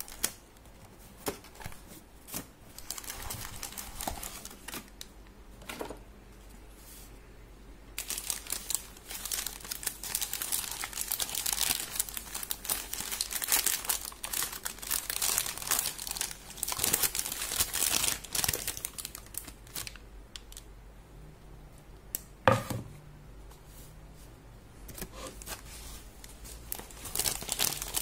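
Paper burger wrapper crinkling and rustling as hands unwrap it, in long spells of dense crinkling after a few scattered crackles at first. About two thirds of the way through comes a single sharp knock, the loudest sound.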